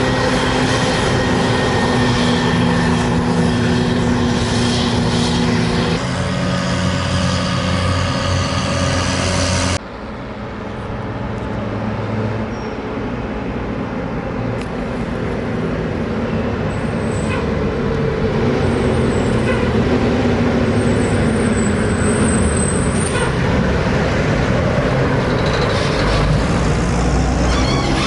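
Heavy diesel farm machinery running steadily: a forage harvester chopping corn and tractors pulling silage wagons. The sound changes abruptly twice, at about six and ten seconds in, as the scene cuts; after the second change it is quieter at first and then grows louder.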